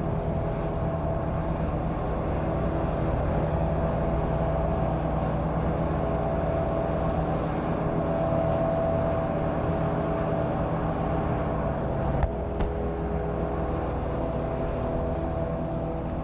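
Steady mechanical hum of a motor or engine running at an even pitch, with a sharp click about three-quarters of the way through where the lower tone drops out.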